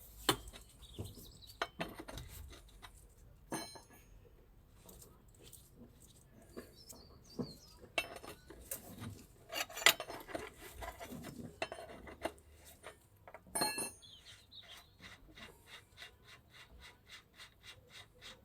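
Metal tools and motorbike parts clinking and clanking as they are handled during work on the rear wheel and chain adjusters, in irregular knocks. Near the end comes a run of even clicks, about three a second.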